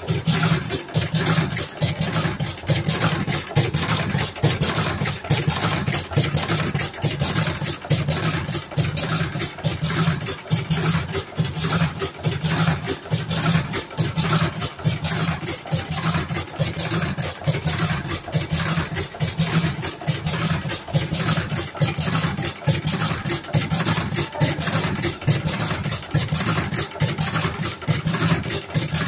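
Electric thick-cigarette filling machine with a revolving tube feeder running steadily: a constant motor hum under a fast, even clatter of repeated strokes as it fills tubes with tobacco.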